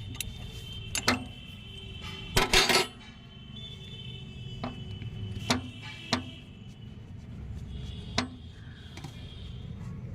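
Sharp metallic clinks of a spanner on the steel nuts of a tractor's brake drum cover as the last nut is worked loose, scattered singly over the seconds with a brief rattling cluster about two and a half seconds in.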